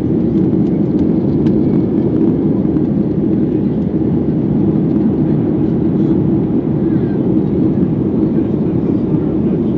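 Steady cabin noise of a Boeing 737-300 in flight shortly after takeoff: the drone of its CFM56-3 engines and the airflow, heard through the cabin from a seat over the wing. The level stays even throughout.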